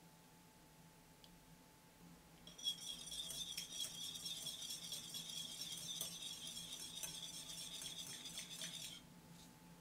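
Wire whisk beating egg yolks in a glass bowl: a fast, steady clinking of the wires against the glass that starts about two and a half seconds in and stops shortly before the end.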